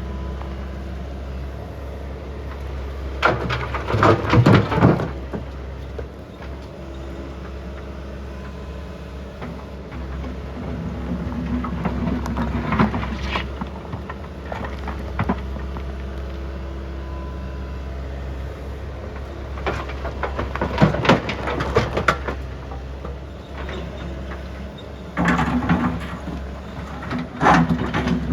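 Compact excavator's engine running steadily, with four bursts of loud clattering and knocking as material is handled in or against the steel trailer.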